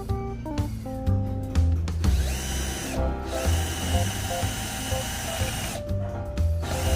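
Mailtank 18 V cordless drill spinning up about two seconds in, running steadily with a high whine for about four seconds, then stopping abruptly, over background music with a steady beat.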